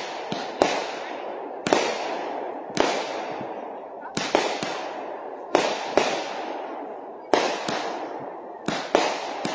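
Consumer aerial repeater cake firing: sharp bangs about once a second, often in quick pairs, each trailing off in a rolling echo.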